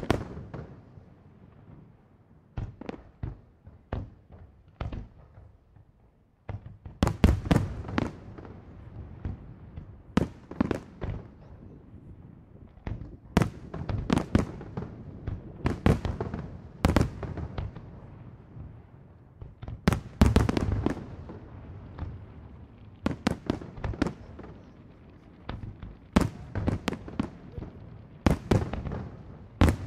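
Fireworks display: aerial shells bursting in sharp bangs at an irregular pace, a handful at first, then from about six seconds in a dense barrage of bangs, several a second at the peaks.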